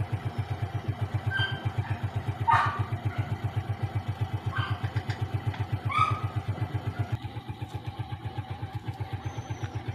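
Suzuki Smash 115's single-cylinder four-stroke engine idling steadily, a fast even low pulsing. Four short, high chirps sound over it in the first six seconds.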